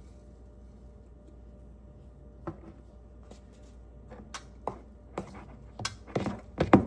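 Kitchen handling sounds: a quiet stretch, then scattered sharp clicks and knocks of utensils and containers, coming more often and louder toward the end.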